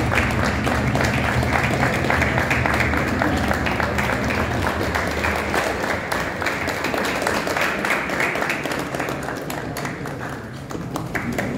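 A crowd clapping steadily, many hands at once, thinning slightly near the end. A low steady tone runs under the clapping for about the first half, then fades out.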